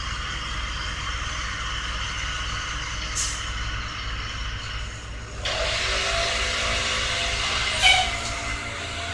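Heavy work truck running with a steady low rumble and hiss; about five and a half seconds in the hiss suddenly grows louder, with a couple of short sharp clicks along the way.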